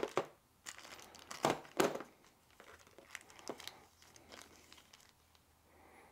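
Crinkling of a small clear plastic zip bag being picked up and handled, with a few louder rustles in the first two seconds, then fainter scattered crinkles and ticks.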